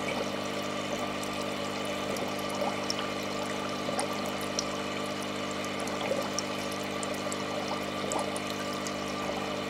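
Aquarium water trickling and bubbling steadily over a constant pump hum, with small scattered pops.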